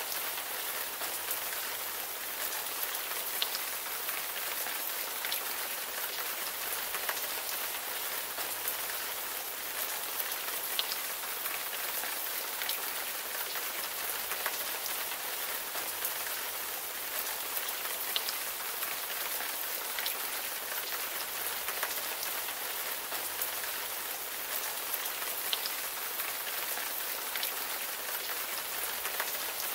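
Steady rain: an even hiss with scattered sharper drop ticks.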